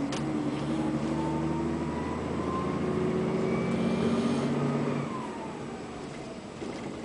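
A man snoring loudly: one long snore lasting about five seconds, then a quieter stretch.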